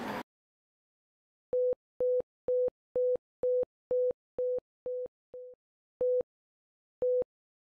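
Patient-monitor heartbeat beeps: short, identical mid-pitched electronic tones, about two a second at first, then slowing to about one a second in the last couple of seconds.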